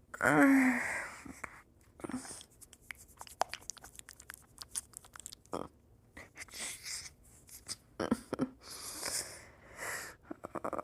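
A woman with a congested head cold, in a fit of sneezes she is trying to stifle: a short voiced burst at the start, then sniffing and snuffling through her blocked nose with many small wet clicks, and harder breaths through the nose near the end.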